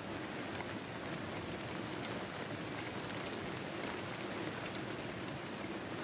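Steady hiss of heavy rain falling on the fabric of a tent, heard from inside, with a few faint ticks.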